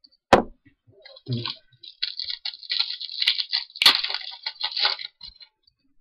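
A single sharp knock, then several seconds of crinkling and tearing as a foil wrapper of a 2010 Bowman Chrome baseball card pack is ripped open, with one louder crackle near the end.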